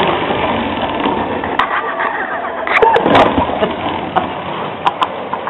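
Ride-on toy truck rolling across a tile floor: its wheels make a steady rumble, with a few sharp clicks and knocks, the loudest a little over halfway through.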